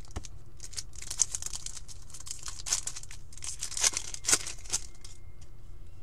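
A trading card pack wrapper being torn open and crinkled by hand: a run of short crinkling tears, loudest about four seconds in.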